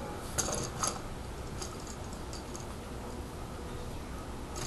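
Plastic Transformers Deluxe Ratchet figure being handled and posed: a couple of sharp clicks about half a second and a second in, then a few fainter ticks of its joints and parts.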